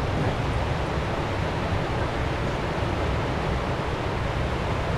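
Steady rush of the Linville River's whitewater, an even roar with no breaks.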